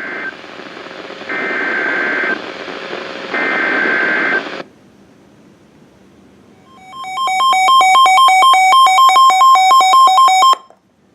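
NOAA Weather Radio Emergency Alert System data header: warbling digital tone bursts about a second long over radio hiss, the end of one and then two more, a second apart. After a short pause, a loud pulsing two-tone alert beep sounds for about three and a half seconds and cuts off sharply, signalling a warning about to be read.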